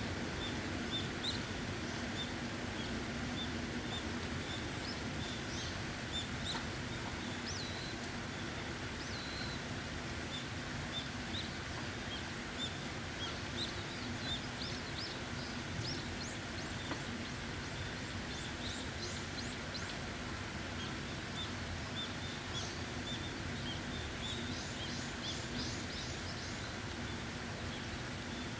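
Steady rain falling, with small birds chirping again and again over it, some in quick runs of notes. A low steady hum sits under the rain for the first few seconds.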